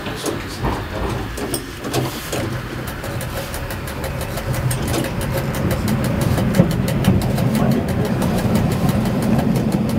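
An ATM tram running along street track, its motors humming low and growing steadily louder as it picks up speed, with a quick run of clicks over the top in the second half.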